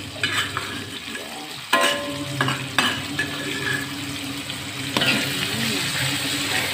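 Hand-pounded chili spice paste sizzling steadily as it fries in oil in a wok. A spatula scrapes and knocks against the pan about three times as the paste is stirred.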